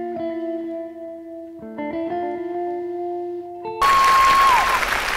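A short music cue of a few sustained notes, cut off about four seconds in by sudden studio-audience applause.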